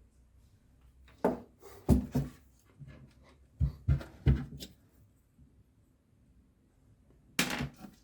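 Handling knocks and thumps from work on a speaker: about six sharp knocks in the first half, then a longer rustling scrape near the end.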